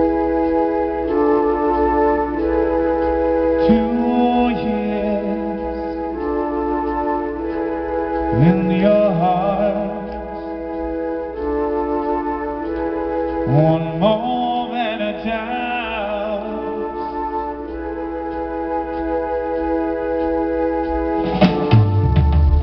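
Progressive metal band playing live through a club PA: held organ chords change every couple of seconds, with three notes sliding up in pitch about five seconds apart. Near the end the drums and the full band crash in.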